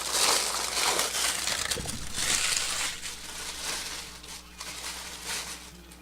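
Packaging crinkling and crumpling as a Funko Pop mystery box is unpacked by hand, in rustling bursts that are loudest over the first three seconds, then quieter.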